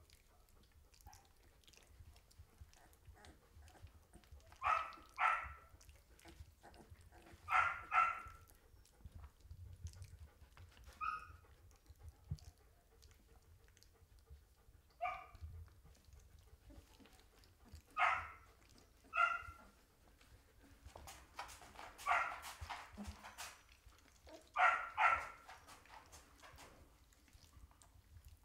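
Belgian Malinois puppies, 17 days old, giving short high yelps and whines, about ten spread through, several in quick pairs a half-second apart.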